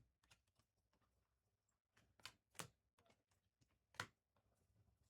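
Near silence with a few faint, short clicks as trading cards are handled and flipped: two close together about halfway through, and one more a second and a half later.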